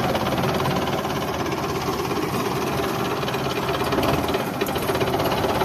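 Belarus tractor's diesel engine running steadily with a fast, even firing beat as it pulls a trolley heavily loaded with sugarcane.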